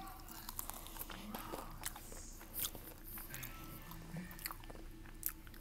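A person biting and chewing food close to the microphone, with scattered short crunchy clicks.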